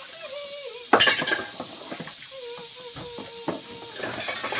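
Pots and dishes clattering and knocking, loudest about a second in, with a couple more knocks near the end, over a steady hiss.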